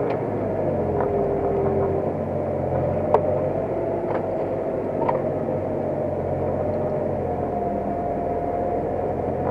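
New Holland T7050 tractor's six-cylinder diesel engine running steadily under load while pulling a plough, with a few sharp clicks or knocks, the loudest about three seconds in.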